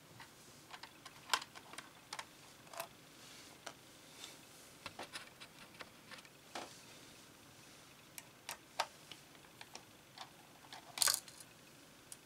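Screwdriver clicking and scraping on small screws as a circuit board is unscrewed from a plastic projector housing, with scattered light ticks from screws and parts being handled and a louder clatter near the end.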